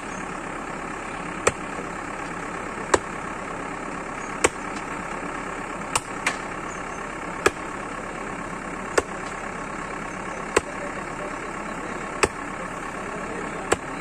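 Hatchet blows chopping into a dead elephant's skull at the root of the tusk: sharp strikes about every second and a half, over the steady idling engine of a backhoe.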